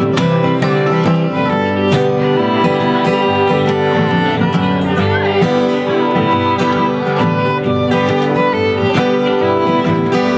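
Acoustic string band playing a bluegrass-style tune: a fiddle bowing the melody over strummed acoustic guitar and mandolin.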